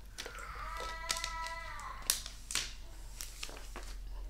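Handling noises from a plastic water bottle being drunk from and set down: a few sharp clicks and crinkles, the loudest about two seconds in. A short high-pitched voice sound, rising then falling, comes early on, about a quarter second in.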